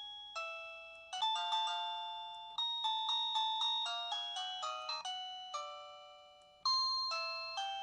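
Plug-in wireless doorbell chime playing an electronic melody of bell-like notes, each struck and fading away. It stops briefly about six and a half seconds in, then starts a new phrase.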